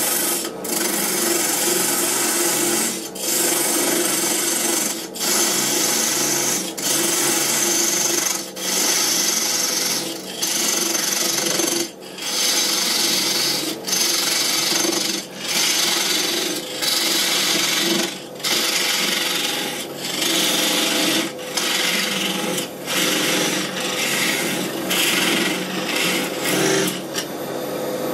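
A narrow turning tool cutting into a spinning mulberry (тутовник) blank on a wood lathe: a dry scraping hiss in repeated strokes, with short breaks about every one and a half to two seconds as the tool eases off the wood. Near the end the cutting stops and the lathe runs on.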